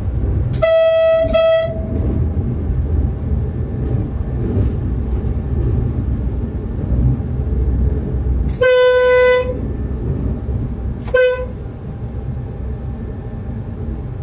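Train horn sounding in blasts: two short higher-pitched toots right at the start, a longer lower blast about nine seconds in, and one more short toot a couple of seconds later. Under it is the steady low rumble of the moving train.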